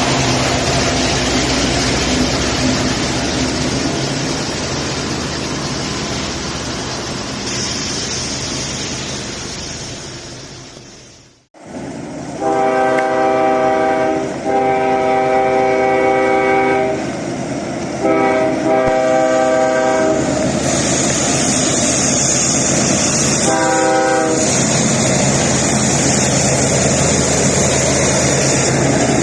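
Heavy rain and rushing water with a low steady rumble, then, after a brief break, a Ferromex freight locomotive's air horn sounding over the downpour: two long blasts, a shorter pair, and one short blast a few seconds later.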